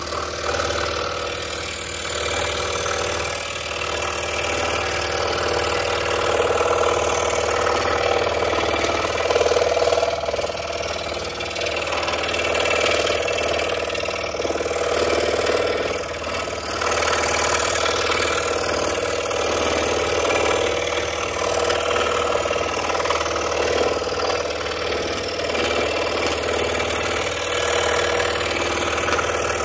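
Scroll saw running, its reciprocating blade cutting out letters in quarter-inch stock; the level rises and falls as the piece is fed and turned.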